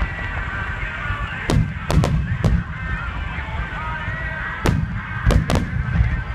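Aerial fireworks shells bursting at a fireworks display: about eight sharp bangs, some in quick clusters, with a low rumble rolling on between them.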